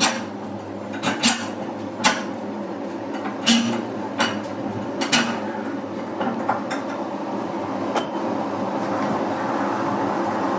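Irregular metal knocks and clanks as steel mould segments and tools are handled around a tractor tyre. One sharp, ringing metal clink comes about eight seconds in, over a steady background noise that rises slightly near the end.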